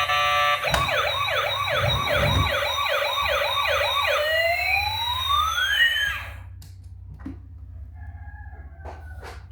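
Electronic siren in a fast yelp, about three rising sweeps a second. It ends in one long drawn-out sweep that cuts off about six seconds in. Music plays for a moment at the start, and a few faint clicks follow the siren.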